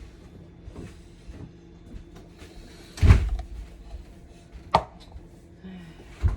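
Knocks in a kitchen: one heavy thump about three seconds in, then two sharper clicks near the end.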